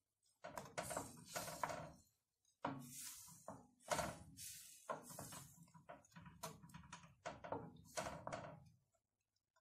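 Wooden spoon stirring grated tomato in a metal pot, knocking and scraping against the pot's sides and bottom in repeated strokes, about two a second, with brief pauses.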